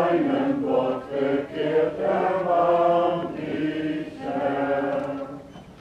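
Slow singing at a church service, voices holding long notes and moving between pitches, fading down near the end.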